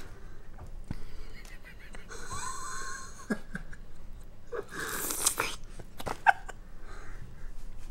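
A woman making a drawn-out wheezy, whining vocal noise as she takes a strawberry, followed by a loud breathy exhale and a sharp click near the end.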